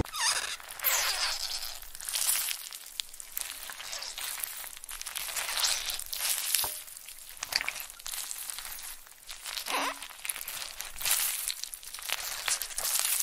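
Thick milk foam on a latte crackling and squishing as two metal spoons squeeze it, an irregular fizzy crackle with brief squeaks.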